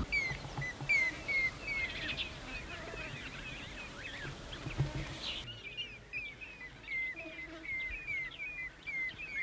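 Wild birds calling: one bird repeats a short falling chirp about two or three times a second, with other bird calls mixed in. A background hiss drops away suddenly a little over halfway through.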